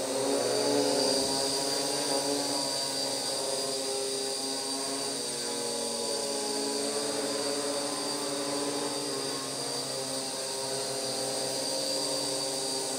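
WLtoys V212 micro quadcopter's four brushed motors and propellers buzzing steadily in flight, the pitch wavering slightly as the throttle changes.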